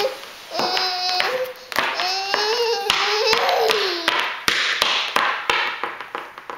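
A toddler's voice in drawn-out, wavering sung tones over the first few seconds, then a run of light taps and knocks through the second half.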